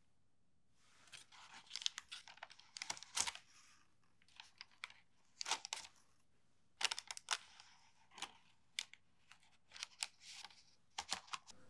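A baked rice-flour pull-apart roll being torn off the block by hand, its crisp crust crackling and the soft crumb tearing, with parchment paper rustling underneath. The crackling comes in irregular clusters, starting about a second in.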